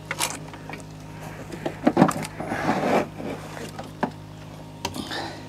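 A few sharp knocks and scuffs of handling on an aluminum boat, over a steady low hum.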